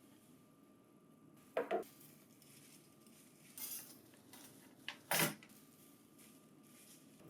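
Hard parts of a printer finisher being handled, clicking and knocking: a quick double click about a second and a half in, a short rustle near the middle, and a louder knock about five seconds in.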